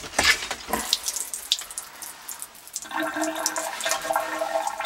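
Kitchen faucet running after a few clicks and knocks, with a steady whine over the flow from about three seconds in. The house's water supply has just been shut off, so the line is draining down.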